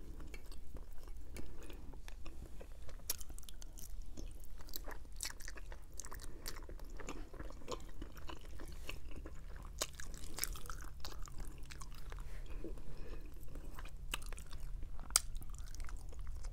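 Close-miked chewing of roasted chicken and fettuccine Alfredo, with wet mouth clicks and smacks scattered irregularly throughout.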